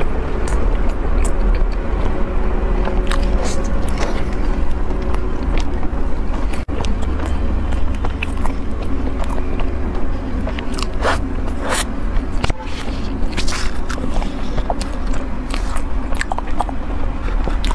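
Close-miked biting and chewing of a flaky pastry, with many short crisp crackles from the pastry layers breaking between mouth sounds, over a steady low hum.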